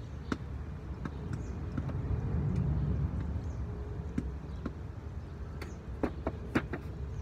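Scattered sharp clicks and taps over a low steady rumble, with several clicks close together about six seconds in.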